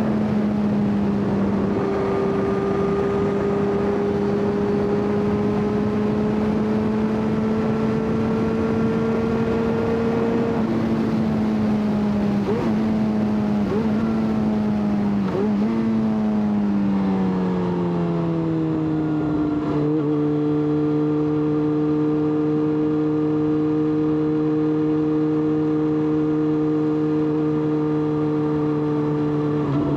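Yamaha XJ6's 600 cc inline-four engine running at a steady pitch on the move. About halfway through the revs dip a few times, then ease down over a few seconds and settle at a lower, steady note, with wind rushing past.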